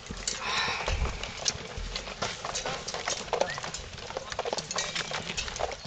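Footsteps of several people walking on a dirt path, a quick irregular run of short knocks and scuffs.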